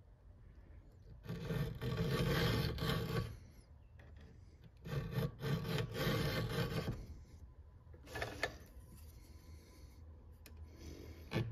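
A flat file rasping back and forth across the steel rakers (depth gauges) of a Husqvarna 372XP chainsaw chain, lowering them so the cutters can bite. It comes in two runs of quick strokes about two seconds each, then a brief single scrape, and the strokes start again near the end.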